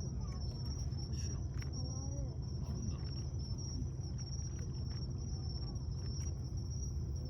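Steady high-pitched chirring of insects, over a murmur of distant crowd voices and a constant low rumble.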